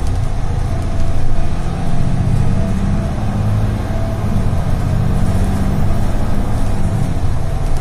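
Mercedes-Benz Citaro city bus heard from inside the cabin while driving. Its engine drones low, swelling about two seconds in and easing off near the end, over steady road noise.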